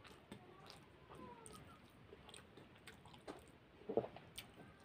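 Close-up chewing and mouth smacks of a person eating rice and curry by hand, with scattered soft clicks, the loudest about four seconds in.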